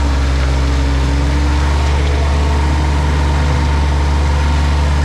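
Motor vehicle engine running at a steady speed, a low, even hum.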